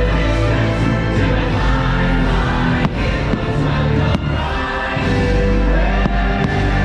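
Fireworks-show soundtrack playing loud: orchestral music with a choir singing, with a few sharp firework bangs about halfway through.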